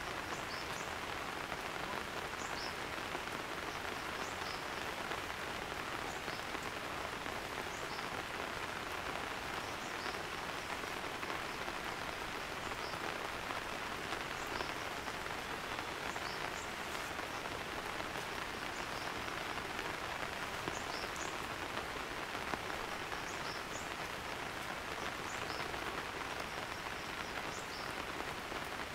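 Rain falling steadily in a forest, an even hiss that does not let up, with faint short high chirps now and then.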